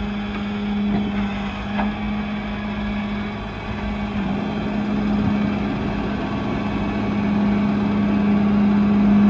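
Flatbed tow truck running steadily, with a constant low hum under a rumbling engine noise that grows slightly louder toward the end.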